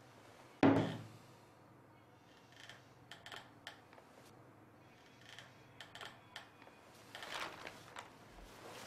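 A milk bottle set down on a table with one solid thunk about a second in, followed by scattered faint clicks and rustles of groceries being unpacked from a plastic basket.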